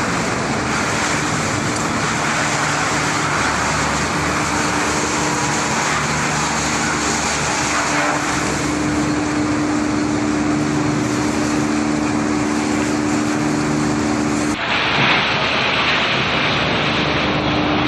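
Wood pallet crusher and grinder machinery running under load: a loud, steady mechanical noise over a constant motor hum.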